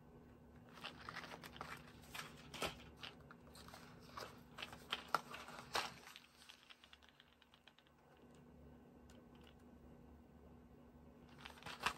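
Faint crinkling and clicking of press-on nail boxes and their packaging being handled. The handling runs for about five seconds from a second in, goes quieter, then gives a few more clicks near the end.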